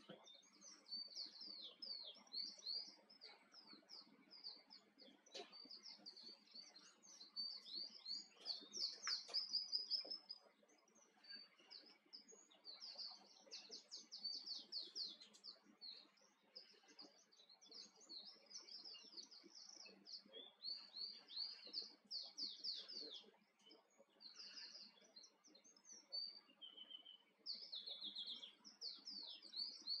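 Male Island Canary (wild Atlantic canary, Serinus canaria) singing: long runs of fast, high twittering notes and trills, broken by short pauses.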